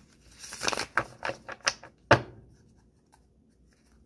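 A tarot deck being shuffled by hand: about two seconds of rustling card flicks and sharp snaps, ending with one louder slap of the cards.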